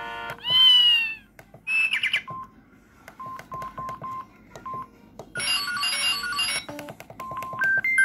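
Samsung SGH-X450 flip phone's speaker: a brief swooping tone preview early on, then a string of short single keypad beeps at one pitch as the menus are stepped through. About five and a half seconds in comes a short burst of high electronic alert tones, and a run of stepping notes begins near the end as an SMS tone previews.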